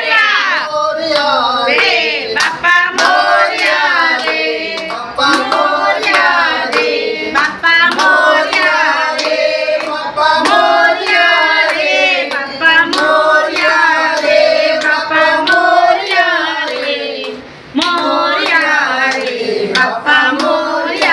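A group of people chanting a Ganesh devotional song together, clapping their hands along with it. The singing drops briefly about three-quarters through.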